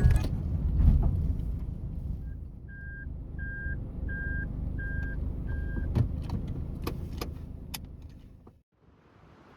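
Inside a Suzuki Lapin kei car with the engine running: a low steady rumble, with about six short electronic beeps from the car, evenly spaced at about one and a half a second. A few sharp clicks follow, and the sound drops away suddenly near the end.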